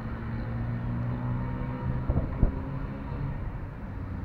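A few sharp metallic clicks of an allen key tightening the brake-pad retaining pin in a scooter's front brake caliper, heard about halfway through over a steady low engine hum that fades out.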